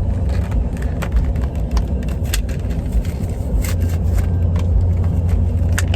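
Steady low rumble of a car's cabin on the move, with scattered sharp plastic clicks and crinkles as a Tangle fidget toy and its packaging are handled and opened.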